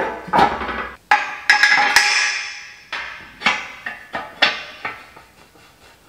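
Heavy steel parts of a welded frame knocking and clanking together as they are handled and fitted by hand: a string of sharp metal clanks, each ringing briefly, most of them in the first four seconds or so.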